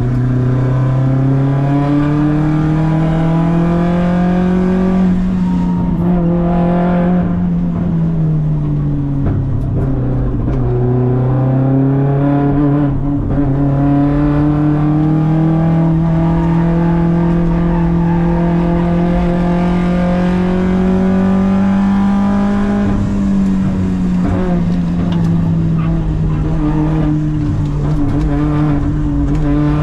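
Audi quattro race car's engine heard from inside the stripped cabin, pulling hard at racing pace. The pitch climbs, drops around seven to ten seconds in, climbs again, and drops once more a little past twenty seconds in as the car lifts for bends.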